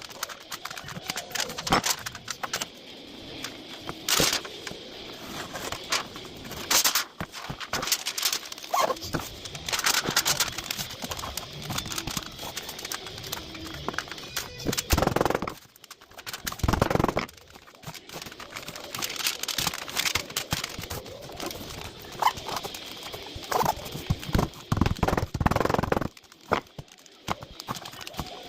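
Irregular clicks, knocks and rustling from knife blades and tools being handled during heat treatment.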